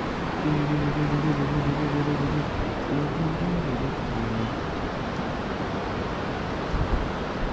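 Steady rushing noise of wind blowing over the microphone, mixed with the rush of the snowmelt river below. A faint steady hum sits under it for the first couple of seconds.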